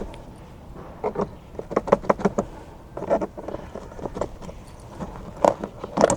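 Irregular hard plastic clicks and taps from the round overhead air vent outlet and its bayonet-mount ring being handled and turned in the ceiling trim.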